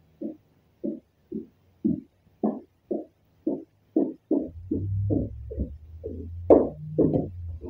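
Background music with a steady beat of about two a second, and a low hum under the second half.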